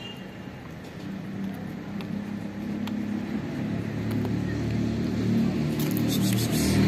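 A motor vehicle's engine approaching, a low steady hum that grows steadily louder through the second half.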